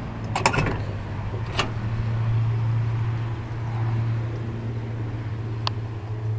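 Pickup truck engine idling steadily with a low, even drone, broken by a few short sharp clicks: one about half a second in, another about a second and a half in, and one near the end.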